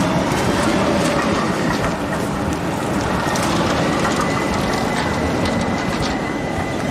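Tram running on its rails: a steady rumble of wheels on track with scattered clicks. A thin, steady high tone sounds from about two seconds in.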